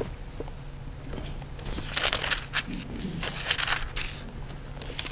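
Paper rustling in several short bursts as sheets of notes are handled and turned, over a low steady room hum.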